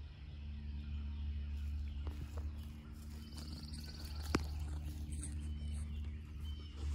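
Outdoor woodland ambience: a steady low rumble with light rustling, a faint high buzzing call from about three seconds in, and a single sharp click a little after four seconds.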